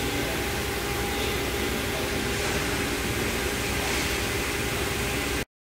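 Steady hum and hiss of running machinery or ventilation, with a faint steady whine, cutting off abruptly near the end.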